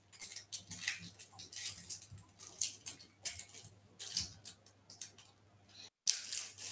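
A plastic catheter wrapper being pulled apart at its perforated seam, with irregular crinkling and clicking of the packaging. A steady low electrical hum sits underneath.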